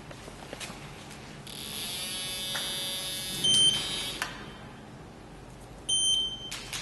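Electronic buzzing from a handheld concrete rebar scanner for about three seconds, with two short, high beeps, one about 3.5 seconds in and one about 6 seconds in.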